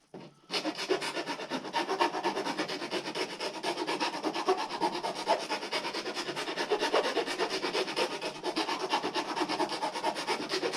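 A curved hand file rasping back and forth in quick, even strokes, widening a mounting hole that is slightly too small for a 12V power socket. It starts about half a second in.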